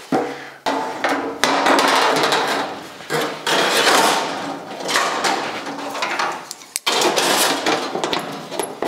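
Long sheet-steel body panel clanging, rattling and scraping as it is handled and set against the car body on the frame table, with a brief pause about seven seconds in.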